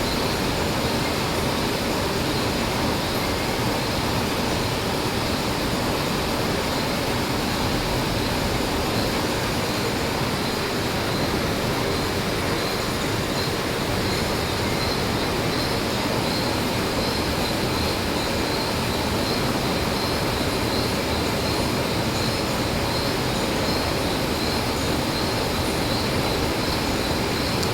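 Lathe running steadily while a ring is machined on it, a continuous mechanical noise with a thin high whine.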